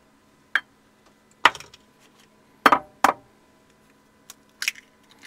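Eggs being cracked on a mixing bowl and dropped in: a handful of sharp taps and clicks, the loudest a close pair about three seconds in.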